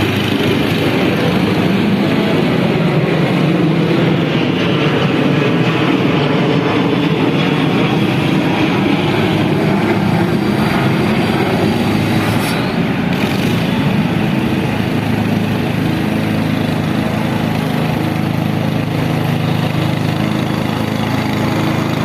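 Petrol lawn mower engine running steadily, with a constant drone and little change in speed.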